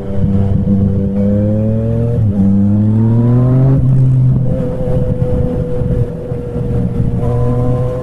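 Yamaha MT-09 motorcycle engine and exhaust pulling hard under throttle, its pitch climbing, with two quick upshifts about two and four seconds in where the pitch drops. After that it holds a steady cruise.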